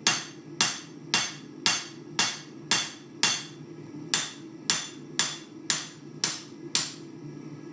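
A hammer striking red-hot steel on an anvil, forging a knife blade made from an old farrier's rasp: steady, even blows about two a second, each with a short ring, stopping about seven seconds in.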